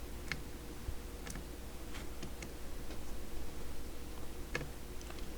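A handful of light, separate clicks and ticks of small metal screws and a screwdriver being handled on a CB radio's chassis during reassembly, over a low steady hum.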